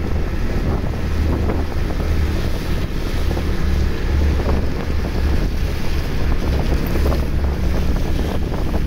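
Wind buffeting the phone's microphone: a heavy, fluttering rumble over a steady rushing hiss.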